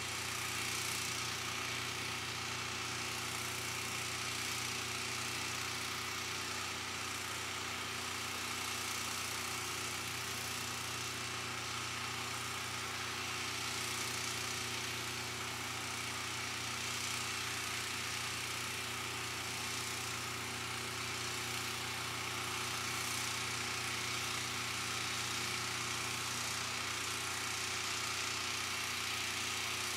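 A steady machine hum: several unchanging low tones over a constant hiss.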